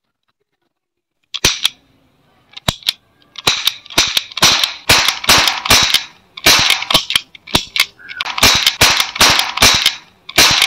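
Toy revolver firing a roll of paper caps: near silence, then from about a second and a half in a rapid string of sharp cracks, several a second, as the trigger is pulled again and again.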